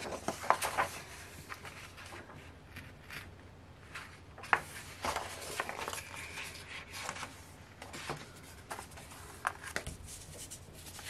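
Folded paper posters and a photo book being handled: scattered short rustles and crinkles of paper, with a few sharper taps as things are set down on the table.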